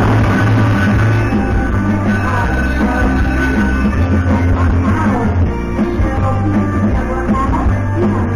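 Timber Wolf Grand slot machine's loud win-celebration music, with a steady beat, playing while the win meter counts up after a bonus-wheel prize.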